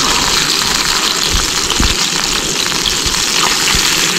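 Chicken pieces frying in a pan over a campfire: a steady, loud sizzling hiss. A few short low thumps sound through it.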